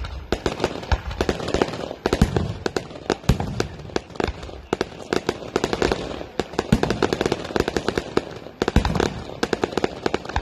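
Fireworks display: a dense, rapid string of cracks and pops from shells bursting overhead, with a few deeper booms among them.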